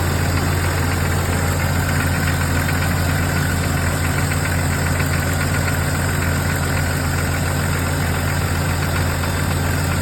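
A 1999 Jeep Cherokee XJ's 4.0-litre inline-six idling steadily with a ticking, knocking from inside the engine. The owner says it could be sticky lifters, piston slap, or rod and main bearings.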